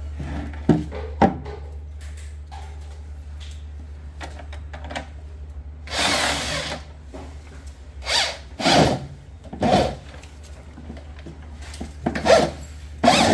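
Power drill run in several short bursts, driving screws, with two sharp knocks near the start.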